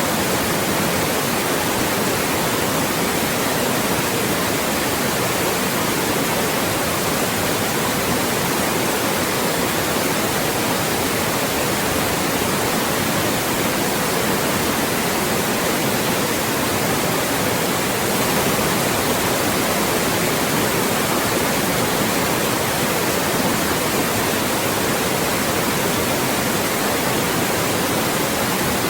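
Steady, loud synthetic white noise, an even hiss across the whole range that does not change.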